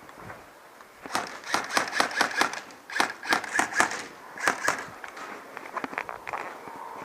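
Airsoft gun firing three quick strings of sharp shots, about five a second, with short pauses between the strings, starting about a second in.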